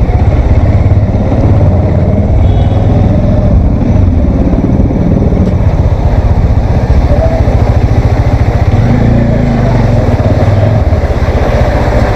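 Bajaj Dominar's single-cylinder engine running steadily while the motorcycle is ridden, under a heavy, steady wind rumble on the action camera's microphone.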